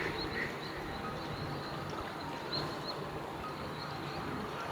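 Flamingo flock at a pond with a steady watery background, faint short high chirps scattered throughout and a soft call early on.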